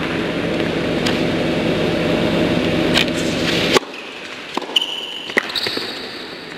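Tennis rally: sharp ball strikes off rackets, with short high squeaks of shoes on the hard court. Under them runs a steady background hum that cuts off suddenly about four seconds in.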